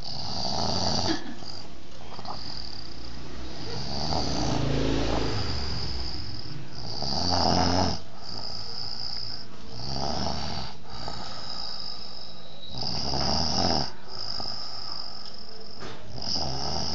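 A person snoring, with a snore about every three seconds, six in all.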